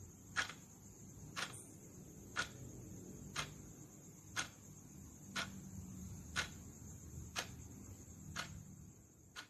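Countdown timer ticking once a second, about nine sharp ticks over a steady low hum and a faint high hiss.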